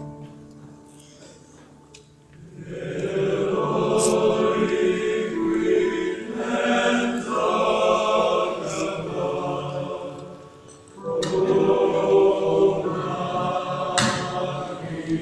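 Choir singing a hymn, coming in about two and a half seconds in after a short lull. It breaks off briefly around ten seconds and comes back in.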